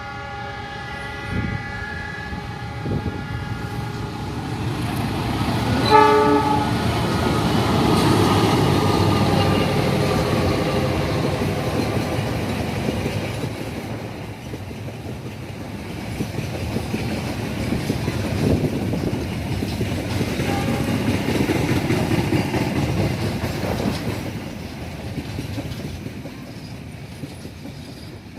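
CC 206 diesel-electric locomotive's horn held for about four seconds, then a short loud blast about six seconds in whose pitch slides down as the locomotive goes by. The train then rolls past with wheels clattering on the rails, dying away near the end.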